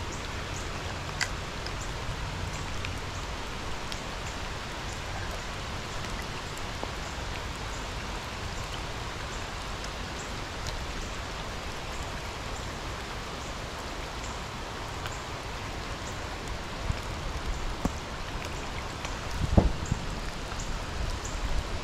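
Rain falling steadily: an even hiss with scattered close drops. There are a few low bumps on the microphone, the loudest near the end.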